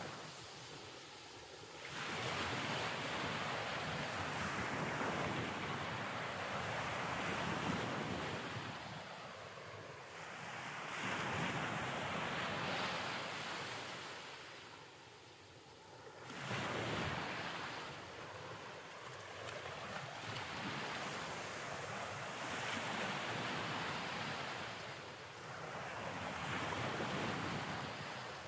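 Ocean waves: a rushing surf noise that swells and fades every few seconds.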